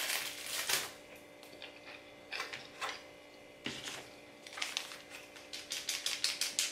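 Close-up eating and table-handling noises: scattered short clicks and rustles, as from chewing and a clear plastic takeout container being handled. They come in quick, busier runs over the last second or two.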